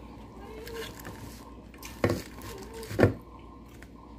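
A person eating rice and fish by hand close to the microphone: two short, loud mouth smacks about two and three seconds in, and a faint hummed 'mm' or two.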